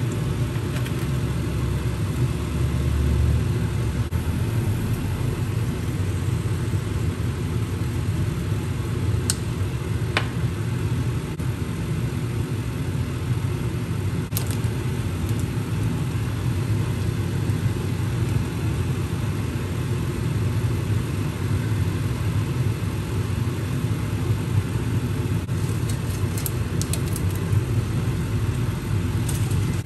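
Steady low whirring hum of a kitchen fan running, with a few short sharp clicks scattered through it.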